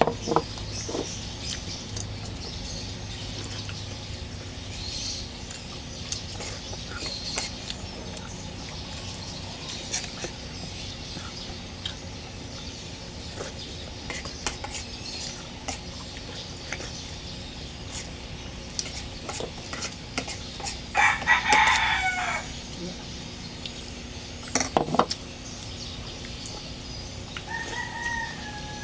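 A rooster crows once about three-quarters of the way through, a loud call about a second long that falls at the end, with a shorter falling call near the end. Scattered light clicks run throughout.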